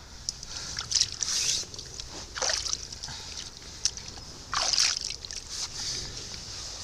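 Water splashing and sloshing in several short bursts, most strongly about a second in, mid-way and near five seconds in.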